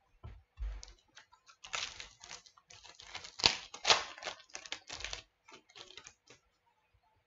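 Trading cards and a card pack wrapper being handled on a table: a quick run of crinkles, snaps and clicks, densest in the middle, with a few soft knocks at the start.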